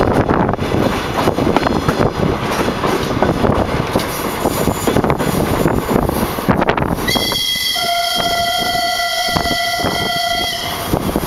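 Diesel passenger train running, its wheels and engine making a steady rumble and clatter, then the train horn sounds one steady chord-like blast of about three and a half seconds, beginning about seven seconds in. The lower notes of the horn come in a moment after the higher ones.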